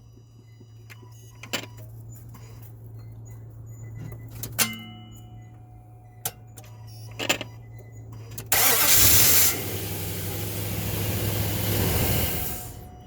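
2005 Nissan Titan's 5.6-litre V8: a few sharp clicks, then about eight and a half seconds in the starter cranks the engine for about four seconds and stops, over a steady low hum. The truck has a random no-start that new battery cables, a new starter and a new ECM relay have not cured, and the owner suspects the IPDM or the ignition switch.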